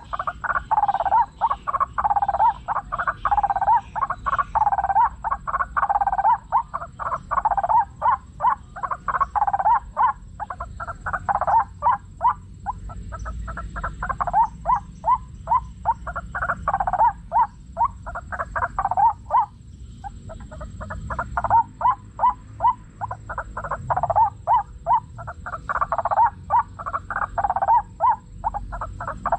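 White-breasted waterhen calls: a long, loud run of harsh notes repeated over and over, several a second, with brief breaks about twelve and twenty seconds in.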